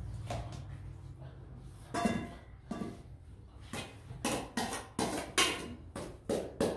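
Long-handled metal spoon scraping and knocking against stainless steel bowls while dishing out rice, a series of sharp metallic taps that come quicker in the second half.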